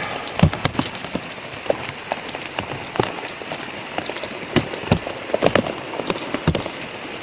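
Steady tropical-storm rain falling, with many individual drops striking close by as irregular sharp taps.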